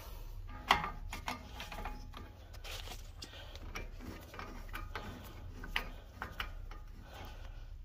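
Irregular metal clicks and clinks, the loudest about 0.7 s in, as a Honda Civic's front axle nut is spun onto the hub by hand and a 32 mm socket is fitted over it.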